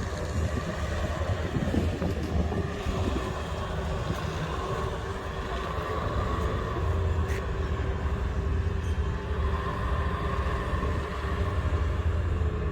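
A heavy engine running steadily with a deep low drone and faint steady whines above it, typical of construction machinery working.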